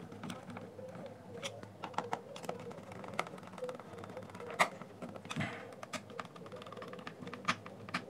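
Small screwdriver driving screws into a JBL Flip 2's plastic housing: scattered small clicks and ticks of the tip and screw against the plastic, with the sharpest click about halfway through.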